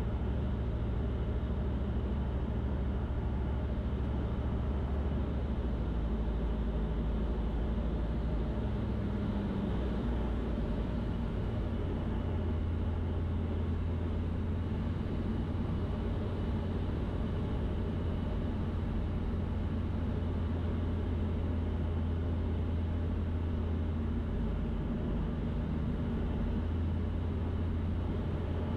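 Cockpit noise of a Van's RV-12 light-sport airplane in flight: the steady drone of its Rotax 912 engine and propeller with airflow noise. The low hum shifts in pitch about a third of the way in and again near the end.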